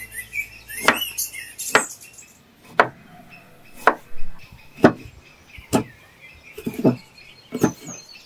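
Large kitchen knife slicing a raw carrot on a wooden chopping board, a crisp chop roughly once a second.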